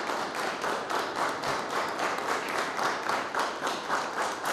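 A room of standing people applauding, their clapping falling together into a steady rhythm. The applause is a tribute to a dead colleague, given in place of a minute's silence.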